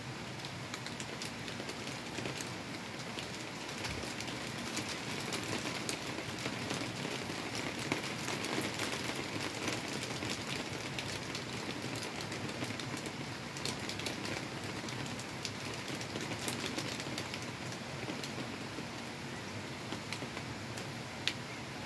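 Heavy rain falling steadily, a dense hiss with many sharp individual drop hits as the rain lands and splashes on a porch railing. One louder drop hit shortly before the end.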